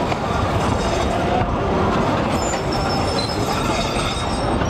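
Articulated tram passing close by, its steel wheels running noisily on the rails. Thin, high wheel squeals come in from about halfway.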